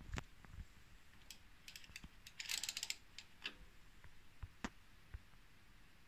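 Light mechanical clicks, scattered and irregular, with a short run of rapid clicking about two and a half seconds in.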